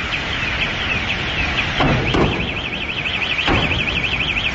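Emergency vehicle's electronic siren sweeping up and down about twice a second, then switching to a fast warble of about eight cycles a second a little over two seconds in. A few short thumps sound under it, over steady background noise.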